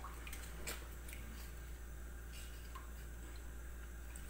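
Wooden spatula stirring a thin tomato sauce in a stainless steel pan: faint sloshing with a few light taps against the pan, over a low steady hum.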